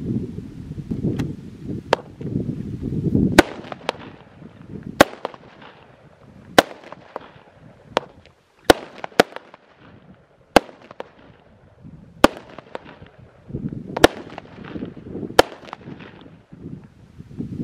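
Consumer firework cake firing its shots one after another: about a dozen sharp bangs a second or two apart as the shells burst, with low rumbling from the launches in between, heaviest at the start and again near the end.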